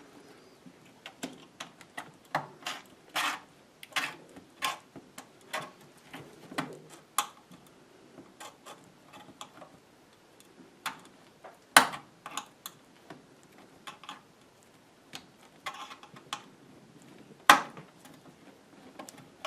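Irregular plastic clicks and taps from hands working at the plastic case and clips of a Dell Latitude E6330 laptop, with two sharp, louder snaps about twelve seconds in and near the end.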